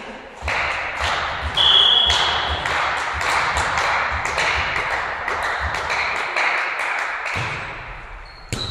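A volleyball rally in a sports hall: sharp ball strikes and footfalls on the wooden floor, echoing around the hall, with a short whistle blast about two seconds in.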